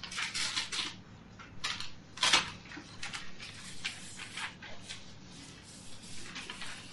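Scattered rustling, clicks and small knocks of people moving and handling things in a room, with one louder knock a little over two seconds in.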